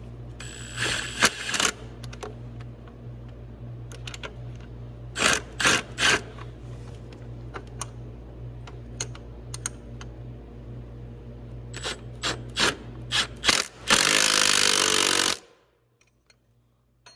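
Ratchet clicks and metal tool clinks in several short clusters while bolts are worked on, over a steady low hum. Near the end comes a loud burst of noise lasting about a second and a half, after which the hum stops too.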